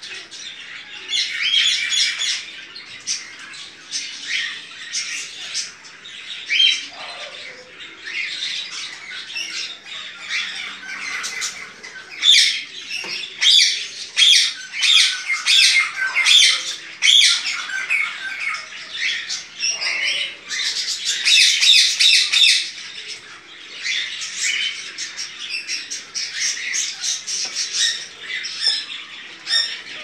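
Chopi blackbirds (graúnas) calling without pause: a chatter of sharp, varied notes, with fast runs of repeated notes in the middle.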